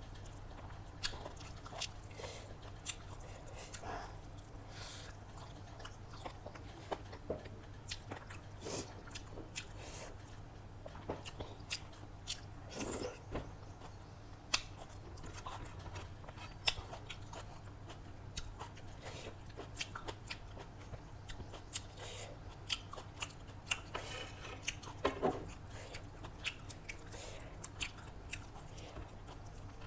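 Close-miked eating: chewing and biting with frequent short crunches and wet mouth clicks, from a meal of chicken biryani and salad. A steady low hum sits underneath.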